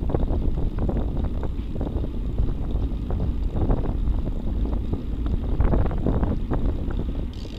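Wind buffeting the microphone of a bicycle-mounted camera on a moving road bike, in irregular gusts over a steady low rumble of tyre and road noise.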